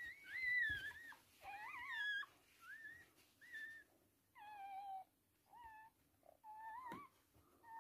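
Newborn toy poodle puppies crying: about a dozen short, high-pitched cries, some of them overlapping.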